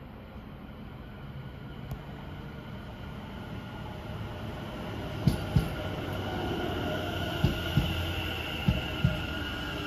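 London Northwestern Railway Class 730 Aventra electric multiple unit running in alongside the platform: a high whine that grows louder as it nears. In the second half there are three pairs of sharp wheel clacks as its bogies cross the rail joints.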